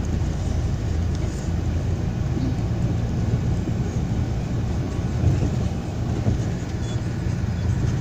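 Steady low rumble of a bus's engine and road noise, heard from inside the moving bus.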